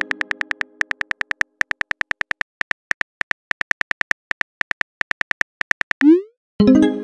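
Chat-app sound effects: rapid keyboard typing clicks, about eight to ten a second in uneven runs, as a text message is typed. Near the end the message is sent with a short rising pop followed by a ringing chime.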